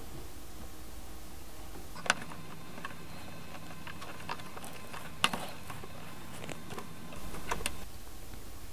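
Light clicks and taps of hands handling a plastic gas can and fuel line, with sharper taps about two seconds and five seconds in, over a faint steady hum. A brief rustle near the end.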